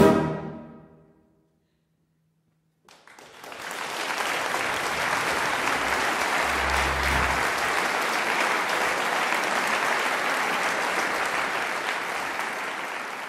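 A brass band's final chord cut off and ringing away in the hall, then after a brief hush the audience breaks into applause about three seconds in, holding steady and easing off near the end.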